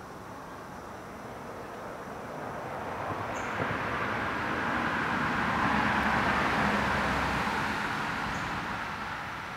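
A vehicle passing by: a rushing noise with a low rumble that swells to a peak about six seconds in and then fades away.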